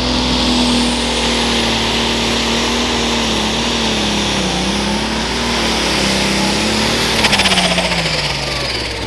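Super stock pulling tractor's turbocharged engine running hard against the sled, with a high whine over a steady engine note. About seven seconds in it launches with a short rapid pulsing burst, and the engine note and whine drop as the tractor takes the load.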